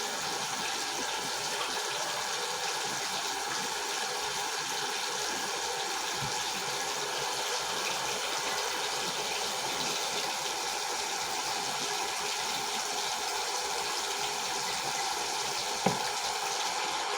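Water running steadily, an even hiss that does not change, with one faint knock a little before the end.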